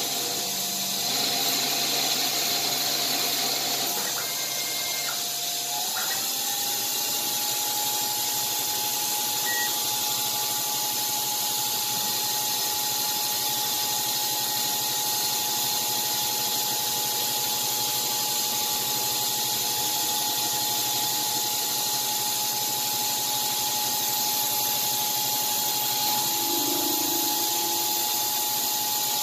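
CNC-converted Grizzly G0602 metal lathe running and turning a pulley: a steady machine whine over cutting noise. The whine steps up slightly in pitch about six seconds in.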